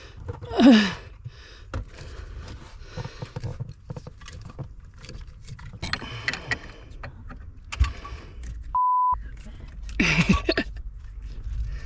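Scattered clicks, knocks and light rattles of car interior trim being handled and refitted, with one short steady beep about nine seconds in that blanks out everything else, like an edited-in bleep.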